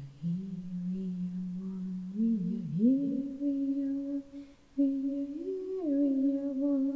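A single voice humming a slow wordless melody in long held notes that slide from one pitch to the next, with a short break a little past the middle.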